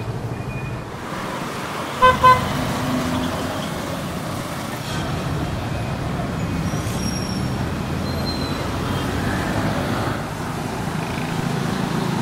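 Road traffic with motor vehicle engines running steadily. A vehicle horn gives two short toots about two seconds in.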